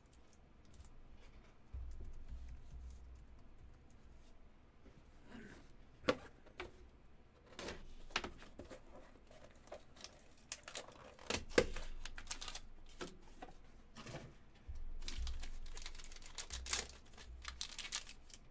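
Hands handling trading-card packaging: a white cardboard box opened, its sealing sticker peeled, and cardboard and paper rustling as cards are pulled out. Scattered clicks and knocks of cases and cardboard on the table, with a couple of dull bumps.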